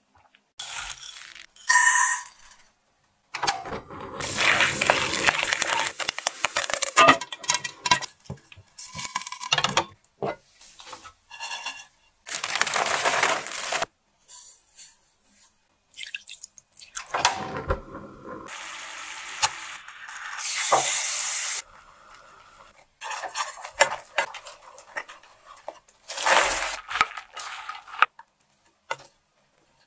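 A string of short cooking sounds in a frying pan, cut together with brief silences between them: something poured from a small glass bowl into the pan, then popcorn stirred through caramel with a wooden spoon near the end, with scraping and knocks against the pan.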